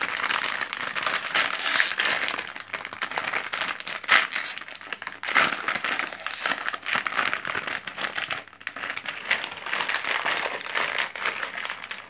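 Crinkly plastic blind-bag collectible packet crackling and crinkling as it is handled and opened by hand.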